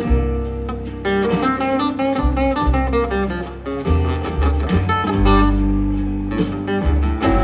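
Live blues band playing an instrumental slow-blues passage: electric and nylon-string acoustic guitars picking lead lines over bass and drums.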